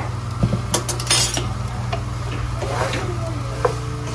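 Wooden spatula stirring and scraping a shredded bamboo-shoot and vegetable filling in a pot, with scattered knocks of the wood against the pot. A steady low hum runs underneath.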